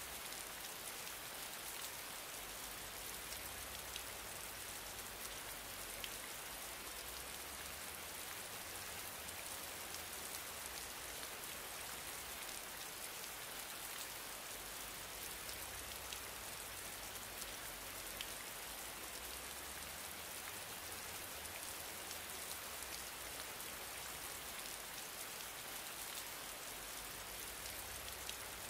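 Steady hiss of background noise, with a faint low hum and a few faint scattered clicks.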